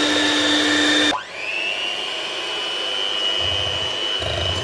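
Food processor running steadily as it mixes crushed Lotus Biscoff biscuits with melted butter, cutting off suddenly about a second in. An electric hand mixer then starts, its motor whine rising quickly to a steady pitch as its beaters work cream cheese in a glass bowl.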